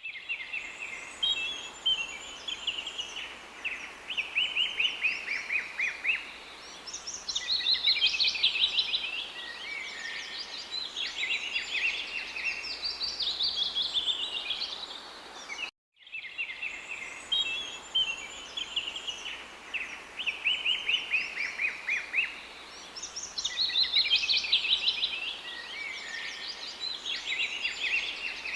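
Several songbirds singing, with rapid trills and twittering chirps overlapping one another. About halfway through the sound cuts out for a moment and the same stretch of birdsong starts over as a loop.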